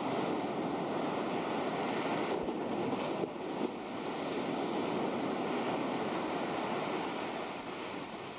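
Ocean surf breaking and washing up the beach as a steady rush of water, easing a little near the end.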